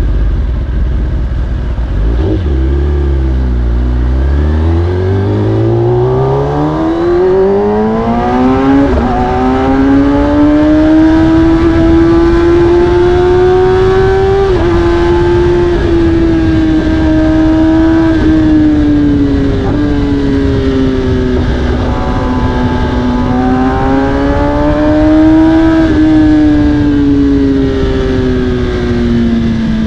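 2020 Kawasaki ZX-10R's inline-four engine through an Akrapovic carbon exhaust, pulling hard from low revs, its pitch climbing steeply for several seconds. It then runs at steady road revs with a series of quick gear changes, each a sudden small step in pitch, rises once more, and eases off near the end.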